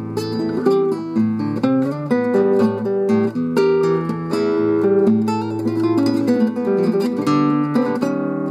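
Nylon-string classical guitar played fingerstyle: a plucked melody over bass notes and chords, note after note without a break.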